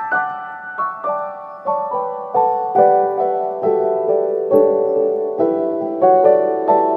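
Background piano music: a gentle melody of single struck notes, a few a second, each ringing and fading.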